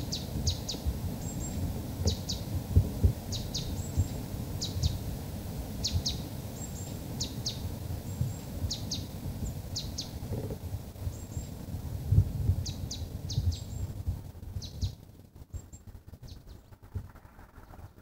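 Small bird calling over and over: short, high notes that drop in pitch, mostly in twos and threes, about one group a second, with faint higher chirps between. Beneath it a low rumbling noise, the loudest part, falls away about fifteen seconds in.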